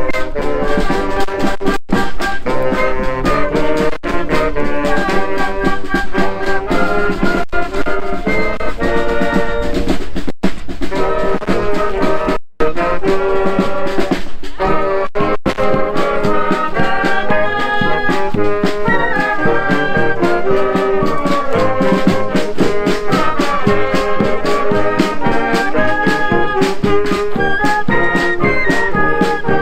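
School wind band playing a tune led by brass, trumpets and trombones. The sound cuts out for an instant about twelve seconds in.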